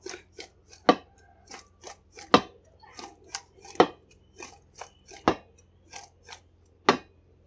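Raw jackfruit chunks being tossed in a stainless steel bowl to coat them with seasoning: a run of short knocks and clatters as the pieces land against the bowl and each other, with a louder knock about every second and a half.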